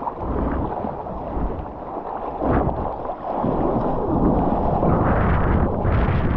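Water washing and splashing around a surfboard, with wind and water buffeting a waterproof action camera's microphone at the surface in a heavy low rumble. The wash grows louder and brighter about four seconds in.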